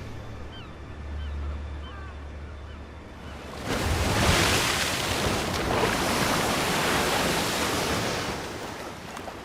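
Sea surf crashing and washing over shore rocks: a broad rush that swells about three and a half seconds in, holds for several seconds and eases near the end. A few short, falling chirps from seabirds come in the first two seconds.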